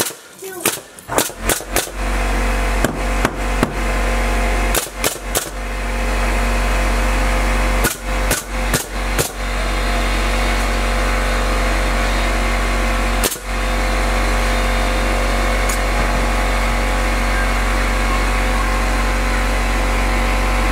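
Pneumatic nail gun firing into wooden framing: sharp shots in quick runs of two to five through the first ten seconds, then one more shot about thirteen seconds in. About two seconds in, a loud steady machine hum starts and keeps going, most likely the air compressor running to refill the tank.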